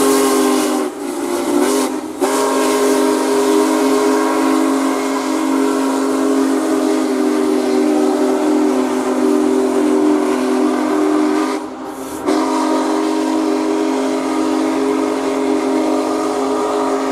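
Union Pacific Big Boy 4014 steam locomotive's whistle blowing long, loud blasts, a chord of several notes at once. It breaks off briefly about one and two seconds in and for about half a second near twelve seconds in.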